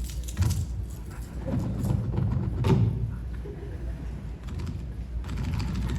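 Live Foley sound effects made by hand with props: an irregular clatter of knocks and thumps with metallic jangling, the strongest thumps about half a second and two and a half seconds in.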